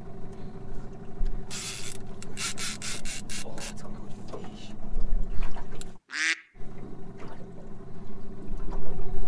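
Outboard motor idling with a steady hum, under a run of short scratchy rasps about two seconds in. The sound cuts out for about half a second near the two-thirds mark.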